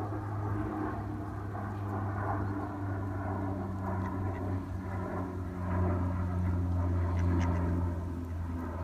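Steady low engine drone, with a few soft duck calls over it.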